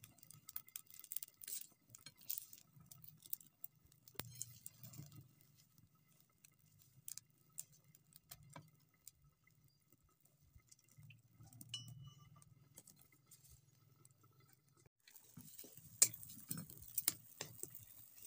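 Chicken curry cooking in a covered steel pot over a wood fire: faint scattered crackles and ticks. About three seconds before the end a sizzling hiss comes up with louder clicks as the pot is uncovered.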